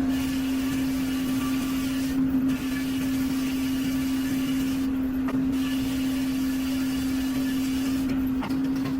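A machine's motor running steadily, with a constant hum at one pitch.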